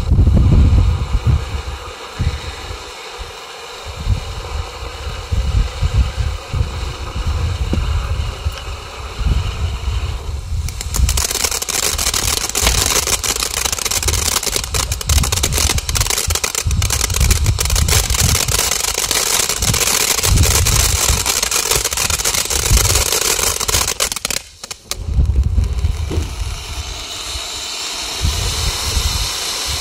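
Fish-shaped ground fountain firework spraying sparks with a steady hiss over an uneven low rumble. Its output grows louder and more crackly about a third of the way in, cuts out for a moment near the end, then hisses on.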